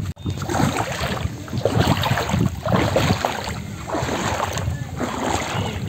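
Bare feet wading through shallow floodwater, a sloshing splash with each step, about two steps a second.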